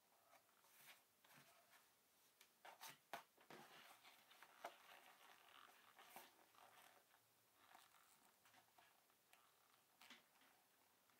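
Faint rustling and creasing of a leather car seat cover being handled and smoothed by hand, with a few short sharper ticks, the loudest about three seconds in.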